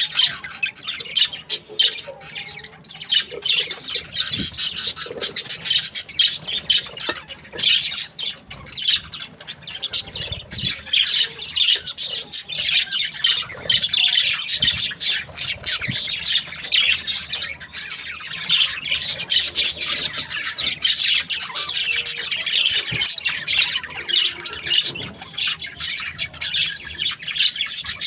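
A group of budgerigars chattering and chirping together: many short, high calls overlapping in a constant stream with no pauses.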